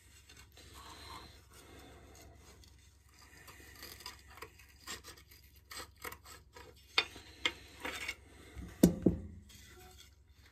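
A green Scotch-Brite scouring pad being handled and trimmed by hand: rubbing and scratching of the abrasive pad, with scattered sharp clicks, the loudest about nine seconds in.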